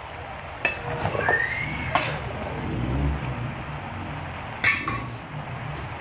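Metal spatula clanking and scraping against a wok as food is stirred: a handful of sharp metallic knocks with a brief ring, the loudest about four and a half seconds in.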